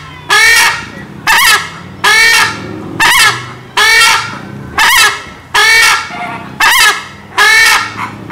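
Crested screamer calling over and over: a steady run of loud calls, about one a second.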